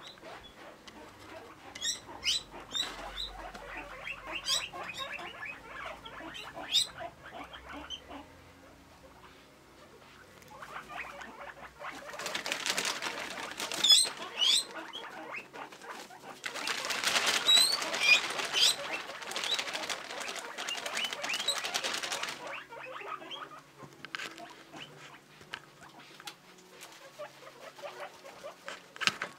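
A group of guinea pigs wheeking, repeated high-pitched squeals begging for food. The calls swell into a dense, louder chorus about twelve seconds in and again from about seventeen to twenty-two seconds, then thin out again.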